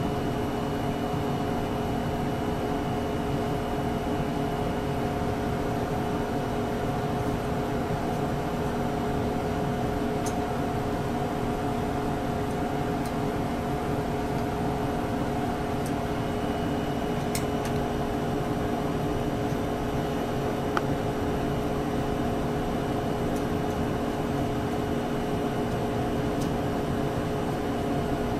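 Steady mechanical hum with several steady tones, like equipment cooling fans, with a few faint clicks from a small screwdriver working the probe's mounting screws.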